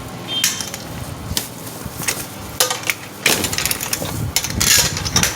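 Softbox light being taken apart by hand: irregular knocks and clinks of its metal rods with bursts of rustling, loudest a bit past three seconds in and again near the end.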